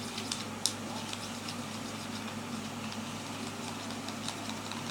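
Slime mixture of glue and activator being stirred in a container, giving irregular small sticky ticks and clicks, one sharper click about two-thirds of a second in. A steady low hum runs underneath.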